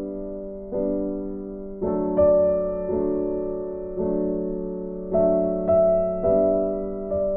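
Background music: soft piano or electric piano playing slow sustained chords, a new chord struck about once a second and fading.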